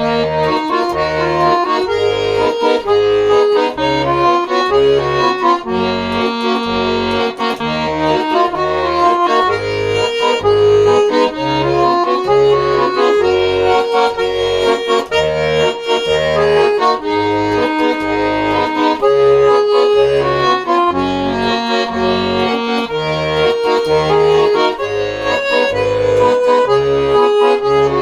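Instrumental music with no singing: a melody over a steady, alternating bass accompaniment.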